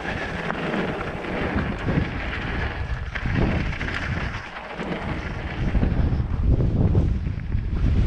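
Wind buffeting the microphone and the rumble of mountain bike tyres running over a dirt trail during a fast descent, growing louder in the second half.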